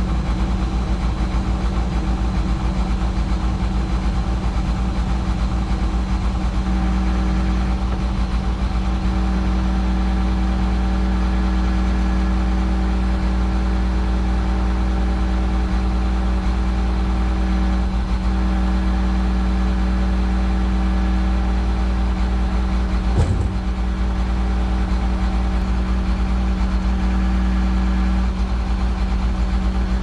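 Bucket truck engine running steadily while the hydraulic boom swings the bucket. The engine note changes about seven seconds in and again near the end, with a single short knock a little after twenty seconds.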